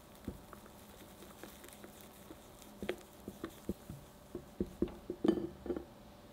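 Silicone spatula stirring sponge batter into melted butter and milk in a glass bowl: wet squishing with light taps and clicks of the spatula against the glass. One knock comes shortly after the start, then a quick run of clicks from about the middle, loudest near the end.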